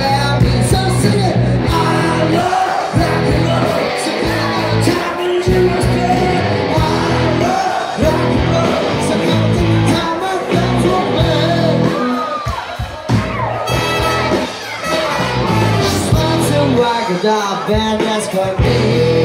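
Live band playing a rock song with a steady driving beat and a lead vocal, while the crowd shouts and sings along.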